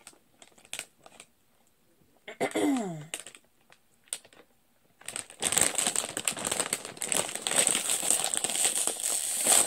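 Plastic-foil bag of Lay's Sriracha potato chips crinkling loudly and continuously as it is handled and pulled open, starting about halfway through. Before that, a few faint clicks and a short falling hum from a voice.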